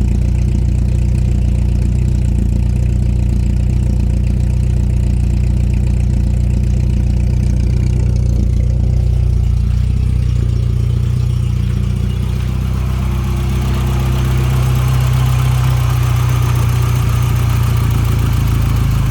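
1989 Volkswagen Jetta's 1.8-litre four-cylinder engine idling steadily through a louder-than-stock aftermarket exhaust. About two-thirds of the way through, the sound changes, with more hiss at higher pitch over the engine note.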